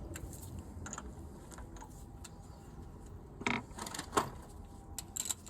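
Scattered light metallic clicks and taps as the drive shaft bolt is wound into the hub by hand, with a couple of louder knocks about three and a half and four seconds in.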